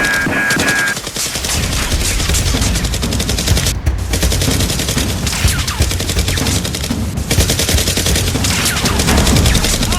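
Rapid, continuous automatic-gunfire sound effects, like machine-gun bursts, with a short break about four seconds in. Background music stops about a second in.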